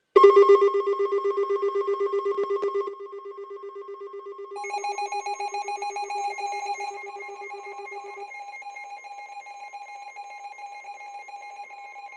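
Emergency Alert System attention signal: electronic tones pulsing rapidly, loudest for the first three seconds, with the pitches shifting a few times. It announces an incoming severe thunderstorm warning.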